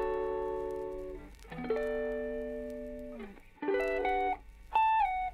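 Background music: a slow melody of held plucked-string notes, some sliding in pitch.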